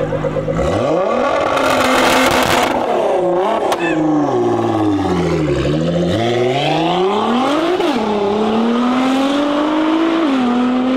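Tuned 800 hp Nissan GT-R, twin-turbo V6 through a Capristo exhaust, idling with a pulsing beat, then about a second in revving hard as it launches and accelerates away. The engine note climbs and drops back several times with the gear changes.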